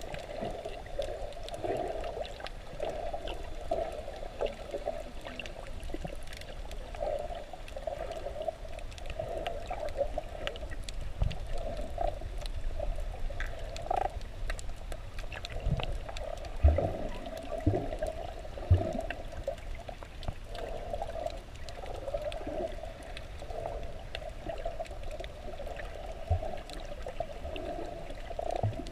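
Muffled underwater water noise picked up by a submerged camera: a steady gurgling, sloshing wash, with a few dull low thumps scattered through it.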